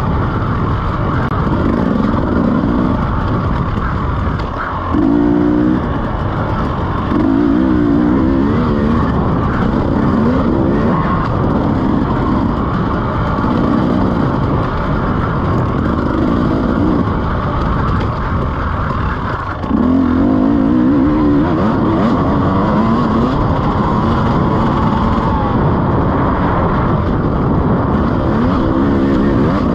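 2017 KTM EXC 300's two-stroke single-cylinder engine revving up and down as the bike is ridden hard, the pitch climbing and falling with the throttle, with brief throttle cuts a few seconds in and again near the twenty-second mark.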